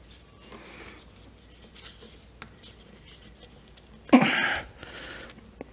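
Hands working the block heater's power cord into place on a small diesel engine: faint rubbing and a few light clicks, then one loud short rustle about four seconds in.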